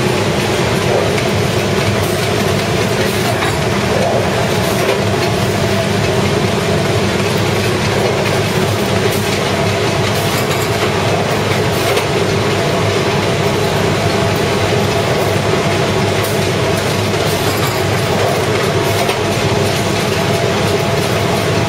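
Lian Tiee AFG 1500 flexo folder-gluer's top counter ejector running at production speed: a loud, steady mechanical din with an even hum and a few faint clicks.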